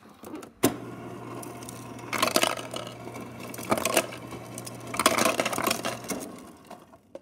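Refrigerator door ice dispenser set to cubes: a click as the lever is pressed, then a steady low motor hum for about five seconds while ice cubes drop and rattle into a plastic cup in three bursts. The hum stops about six seconds in.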